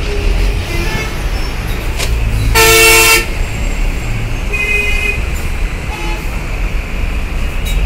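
Bus and truck engines running in heavy traffic, with a loud vehicle horn blast of under a second about two and a half seconds in and a shorter horn toot about five seconds in.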